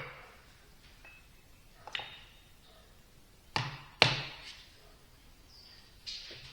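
A new shaft seal being tapped into a vane-pump housing: four sharp metallic taps at uneven intervals, each with a short ring, the loudest about four seconds in.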